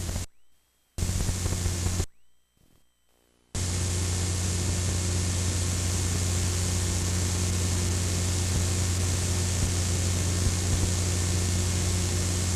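Videotape playback noise: a steady hiss with a low hum underneath. It drops out to silence twice in the first few seconds, then runs on unbroken.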